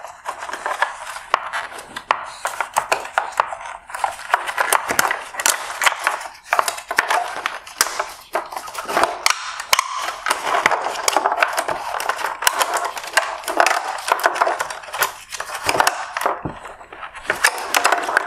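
Wire harness being pulled and worked free of a 2017 Kia Forte halogen headlight's plastic housing: continuous scraping and rustling of wires and plastic on plastic, with many small clicks and knocks.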